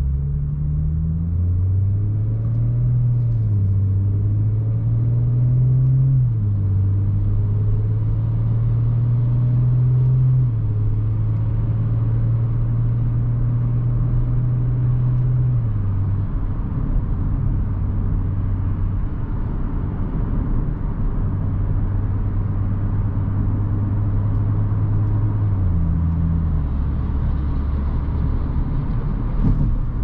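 2018 Audi S4's 3.0-litre V6 heard from inside the cabin as the car accelerates through traffic. The engine note climbs slowly and drops in pitch several times as the 8-speed automatic upshifts, then holds a low steady drone over steady tyre and road noise.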